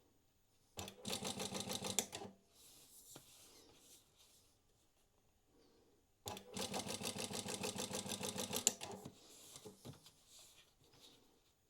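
Industrial walking foot sewing machine (Prosew PS-1903SX) stitching in two bursts of rapid, even stitch strokes: one of about a second and a half, then one of about three seconds, with fainter rustling and clicks between. It is running the segments of a programmed box-square pattern with diagonals.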